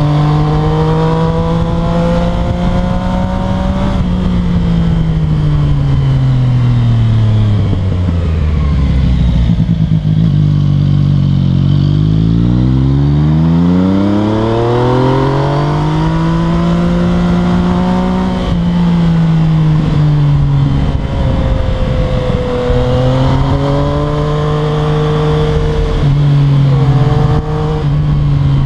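Yamaha MT-09's three-cylinder engine through an Akrapovic exhaust, heard on board while riding, with wind rush. The revs fall slowly for about nine seconds as the bike slows, then climb again over the next few seconds as it accelerates, and hold fairly steady after that.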